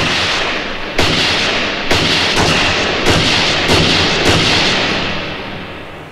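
A run of about seven gunshots, one every second or less, each with a long echoing tail; the sound dies away near the end.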